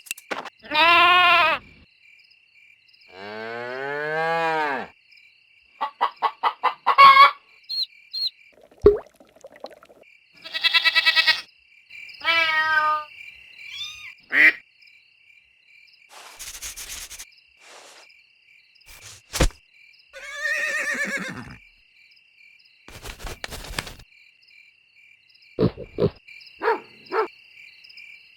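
A string of farm-animal calls, one after another with short pauses between them: cartoon sound effects of different animals, among them mooing livestock. A faint steady high tone runs under much of it.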